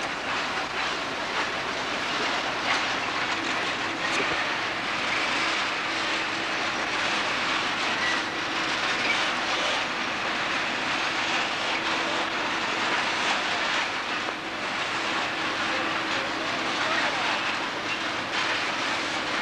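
Narrow-gauge train running: steady rumble and rattle of the coaches on the track, with a light steady hum from the Lxd2 diesel locomotive and scattered clicks from the wheels.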